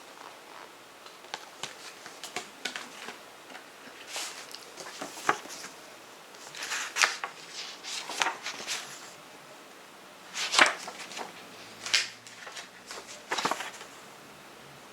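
CD packaging being handled: irregular clicks, crinkles and scrapes of plastic.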